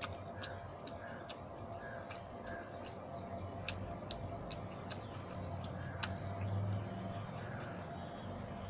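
Close-up chewing of a fried snack, with sharp, irregularly spaced mouth clicks, over a faint steady hum.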